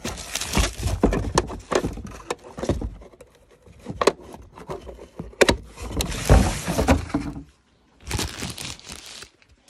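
A portable power station being unpacked and handled: irregular knocks, thuds, scrapes and rustling of the box and packaging, with a brief silent pause near the end.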